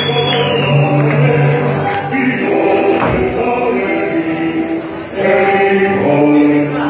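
Music with several voices singing together in long held notes, like a choir.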